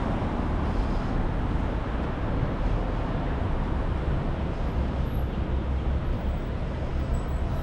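Steady city street traffic noise: cars and buses passing, with a continuous low rumble.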